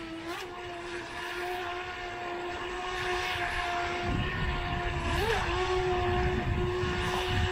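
WLToys WL912-A RC speed boat's 390 brushed electric motor whining at a steady high pitch while the boat turns tight circles at full lock. The whine grows slowly louder and its pitch wavers briefly twice, and a low rumble joins about halfway.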